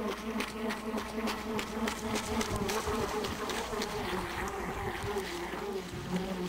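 Radio-controlled power boat's small motor buzzing steadily as the boat runs across the water, its pitch wavering a little, with scattered short crackles.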